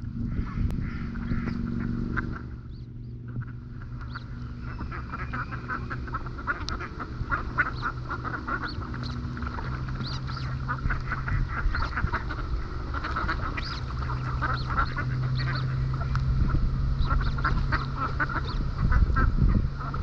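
Pūkeko (Australasian swamphens) feeding on grass close to the microphone: a busy, irregular run of short pecking and nibbling clicks mixed with soft nasal bird calls, over a steady low hum.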